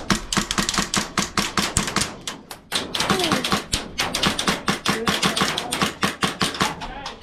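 Airsoft guns firing rapid strings of shots, a fast crackle of sharp clicks with a brief pause a little under three seconds in.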